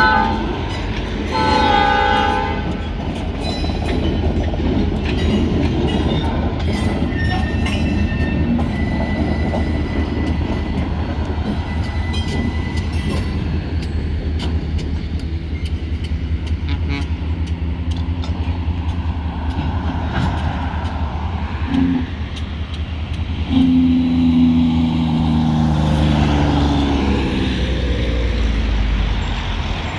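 Freight train of loaded pulpwood log cars rolling slowly past with a steady low rumble and scattered clanks from the wheels and couplings. A short horn blast sounds about two seconds in.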